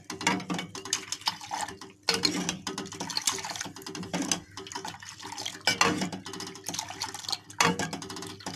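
Kahwa (green tea brew) being ladled up and poured back into a metal pot in a stream, splashing over and over, with the ladle clinking against the pot: the tea is being beaten to aerate it.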